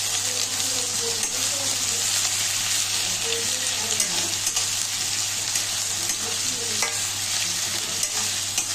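Sliced onions sizzling steadily in hot mustard oil in a kadai on medium heat, with a metal spatula scraping and stirring them through the oil, over a steady low hum.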